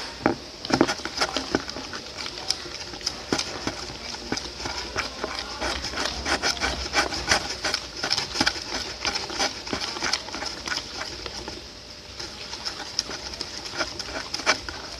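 Slime being stirred in a container right after more activator goes in: quick, irregular sticky clicks and taps of the stirrer against the bowl as the glue thickens. A single sharp click opens the stirring.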